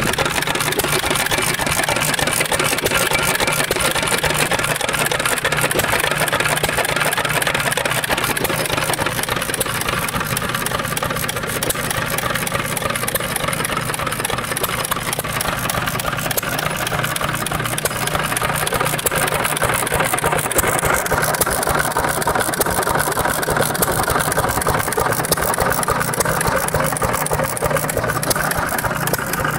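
1923 Witte 1½ hp single-cylinder hit-and-miss gas engine running steadily.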